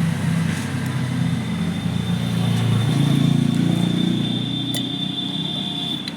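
Steady low hum of a running engine or motor, a little stronger around the middle, with a thin high whine coming in near the end.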